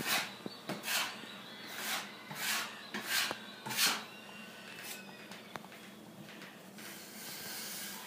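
A run of short scraping strokes, about six in the first four seconds, then quieter, with a faint steady hiss near the end.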